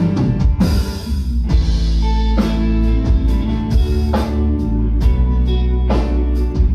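Live band playing an instrumental passage of a slow Thai pop song between sung lines: held notes over a deep bass line, with a drum hit about once a second.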